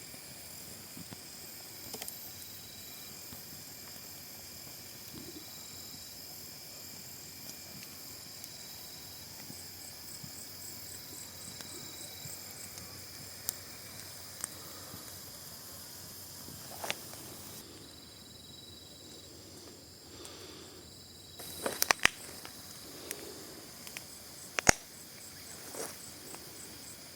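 Forest insects calling: a steady high hiss with short repeated high notes and bursts of pulsing trills. A few sharp clicks and knocks stand out in the second half, the two loudest a couple of seconds apart.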